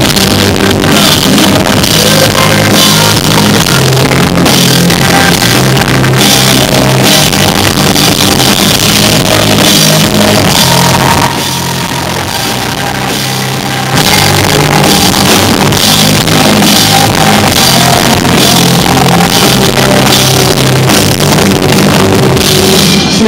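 Live rock band playing loud, with electric guitars, bass guitar and drum kit. The band drops to a quieter passage about halfway through, then comes back in at full volume about three seconds later.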